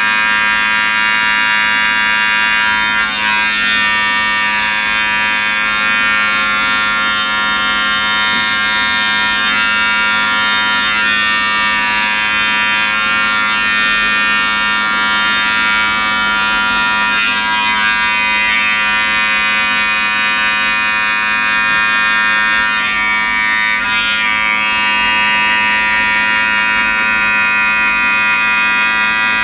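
Electric hair clipper buzzing steadily as it cuts short hair for a skin fade, with slight wavers in the buzz a few times as the blade works through the hair.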